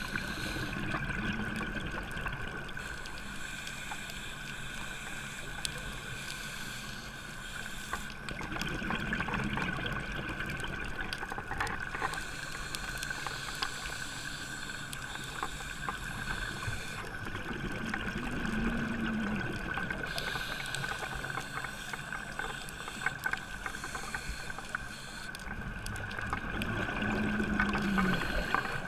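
Underwater sound heard through a camera housing on a scuba dive: the diver's regulator breathing swells up about every nine seconds. Under it run a steady high tone and scattered crackling clicks.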